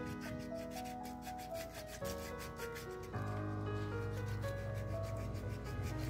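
Fine sandpaper rubbing back and forth in quick, even strokes along a fridge's metal door handle, roughing up its old coating, under background music.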